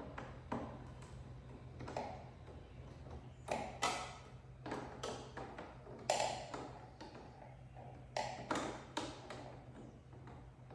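Irregular taps, clicks and light knocks of hand tools and plastic fairing parts being handled while a motorcycle's lower fairing is taken apart, over a steady low hum.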